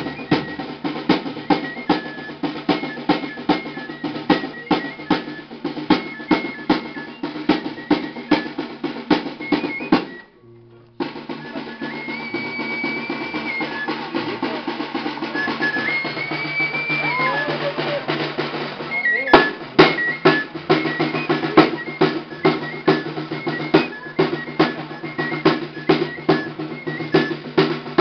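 Hand drum beaten in a steady dance rhythm, with a high piping tune over it. The sound cuts out briefly about ten seconds in. The drumming is softer for a while after that and comes back with loud strikes near the twenty-second mark.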